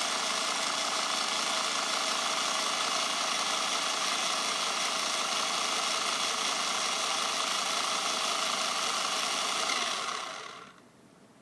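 Small electric motors and gearboxes of toy RC cars running at a steady speed with a constant whine, then dying away over about a second near the end.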